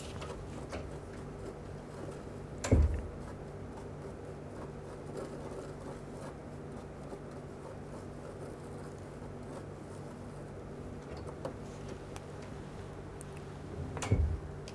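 Small metal spatula stirring and scraping a heap of powdered crystals (copper sulphate, potassium permanganate and salt) on a sheet of paper: faint scratching and rubbing over a steady low hum, with a single knock about three seconds in.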